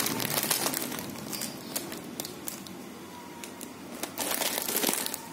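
Plastic snack bag of corn chips crinkling and crackling as it is handled, loudest in the first second and again about four to five seconds in.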